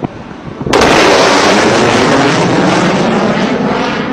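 Fighter jet passing fast and low overhead: its jet noise comes in all at once a little under a second in, very loud, and then eases off slowly.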